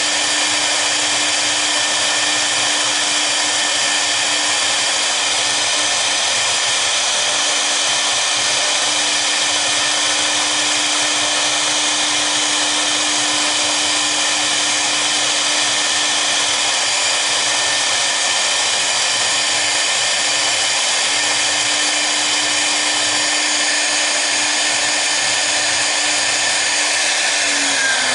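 The two spindles of a double-spindle CNC router run steadily while their V-bits engrave a pattern into a board, giving a constant whine over a cutting hiss. In the last second the pitch starts to fall as the spindles begin to slow at the end of the job.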